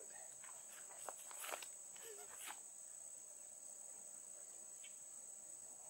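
Steady high-pitched chirring of an evening insect chorus. A few short clicks and knocks sound between about one and two and a half seconds in, the loudest about a second and a half in.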